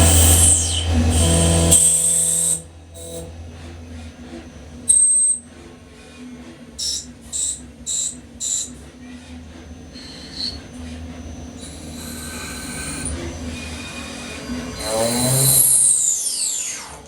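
CNC lathe turning brass parts: the spindle runs and cuts loudly for the first couple of seconds, then runs quieter with four short, high metallic squeals in the middle, and a gliding whine of the spindle changing speed near the end.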